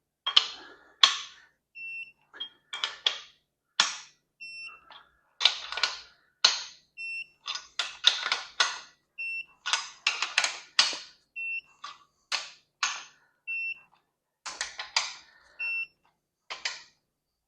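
Digital click-type torque wrench re-checking the main bearing cap bolts on a small-block Chevy 305: quick bursts of ratchet clicks as each bolt is pulled, each followed by a short high beep as the wrench reaches its set 70 ft-lb. About ten beeps in all, a second or two apart.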